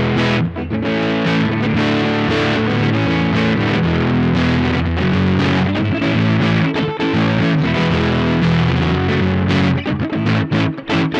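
Electric guitar, a Squier Paranormal Offset Telecaster with a Lollar Royal T neck pickup and its bridge pickup switched into series, played through distortion and plate reverb. Ringing distorted chords with only brief breaks about half a second in, around seven seconds and near the end.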